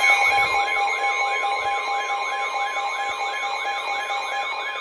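Emergency alert alarm tone for a severe thunderstorm warning: steady electronic tones under a repeating siren-like warble that sweeps about three times a second, getting slightly quieter toward the end.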